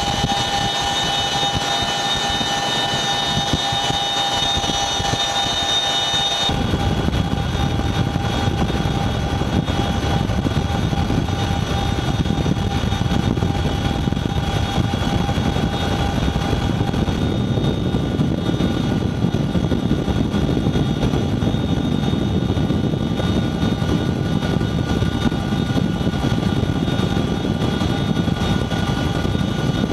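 CH-47 Chinook heavy-lift helicopter in flight, heard from on board: a steady turbine whine of several high tones. About six seconds in it changes abruptly to a heavier, deeper rotor and engine drone, with the whine fainter.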